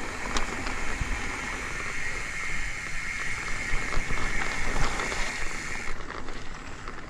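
Mountain bike riding over a rough, wet grassy dirt track: a continuous rushing noise of tyres and brushing grass with scattered knocks and rattles. A steady high hiss stops about six seconds in.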